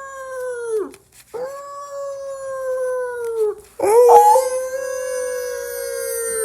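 Dog howling: long, steady howls, each sagging in pitch as it trails off. The last one begins with a short yelp and is still held at the end.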